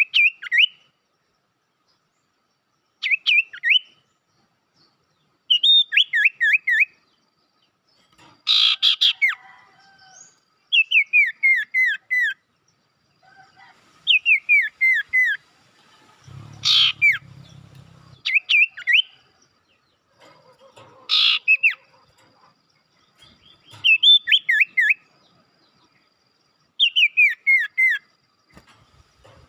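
Sirtu bird calling: short bursts of three to six quick, falling chirps, repeated every two to three seconds, with a few sharper, louder notes among them.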